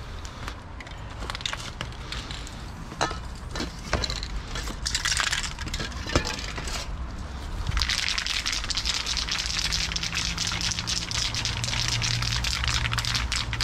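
Metal spray-paint cans clinking and knocking as a hand rummages through them in a bag, then, about eight seconds in, a Loop Colors aerosol can spraying paint in a long steady hiss.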